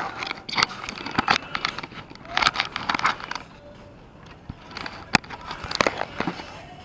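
Irregular knocks, scrapes and rustles of an action camera being handled and bumped, its body rubbing against skin and clothing close to the microphone.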